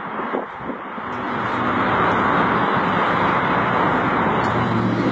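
Road traffic noise: a steady rush of passing vehicles that swells about a second and a half in, with an engine's low hum coming in near the end.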